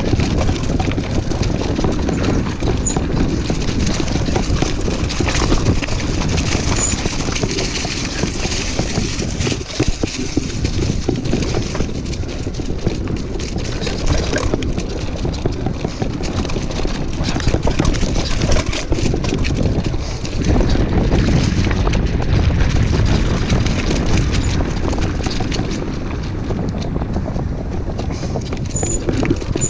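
Mountain bike rolling fast down a rough dirt trail strewn with leaves and pine needles: tyres crunching and the bike rattling over the bumps without pause, with wind rumbling on the camera microphone.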